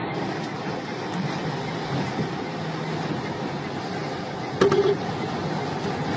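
Steady rush of strong wind and road traffic noise, with a short louder sound about four and a half seconds in.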